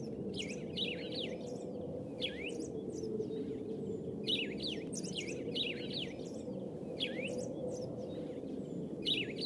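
Birds chirping in short clusters of quick falling notes every couple of seconds, over a steady low background noise.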